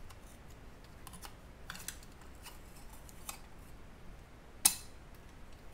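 Scattered light metallic clicks as the cassette holder assembly of a Beocord 5000 tape drive is worked loose and lifted off its chassis, with one sharp click near the end.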